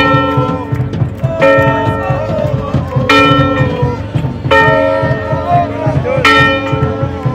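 Large metal stadium bell swung by hand and ringing, struck five times about every one and a half seconds, each strike sounding several clear tones that ring on until the next.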